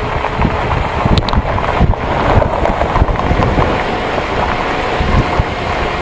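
A vehicle driving along a rough unpaved forest road, its rumble and road noise mixed with heavy wind buffeting the microphone.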